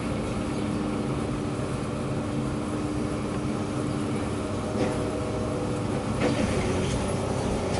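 Komatsu PC200 excavator's diesel engine running steadily under load as it works a bucket of demolition debris, with a couple of sharp clatters about five and six seconds in as wood and junk drop into the steel dumpster.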